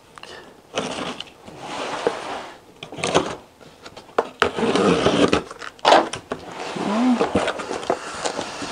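A cardboard box being opened by hand: a run of rustling, tearing and scraping bursts as the tape along the top seam is pulled off and the flaps are folded back.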